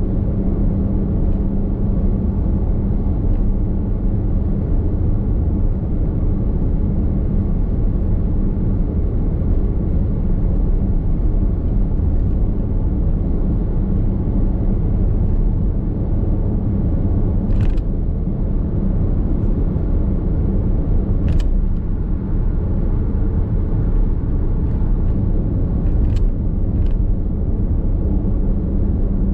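Steady road and tyre rumble of a Nissan X-Trail Hybrid cruising at expressway speed, heard inside the cabin, with a few brief clicks in the second half.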